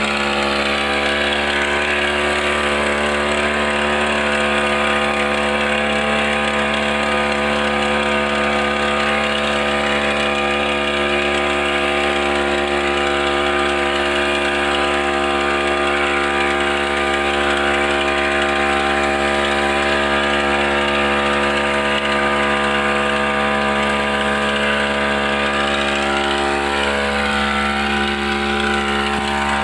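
Small gasoline engine of a backpack power sprayer running steadily at a constant speed while it pumps pesticide out through the spray lance.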